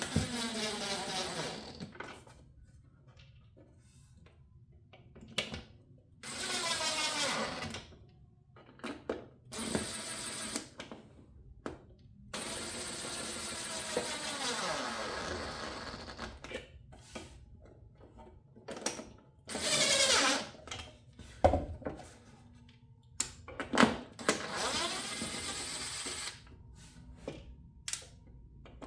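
Cordless drill-driver driving small screws, in about six short runs, each motor spinning up and winding down, with clicks and knocks of handling between runs.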